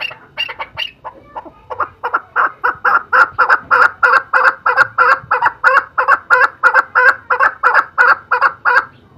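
Male chukar partridge calling: a fast, even series of clucking calls, about four a second, that swells louder about two seconds in and stops abruptly near the end.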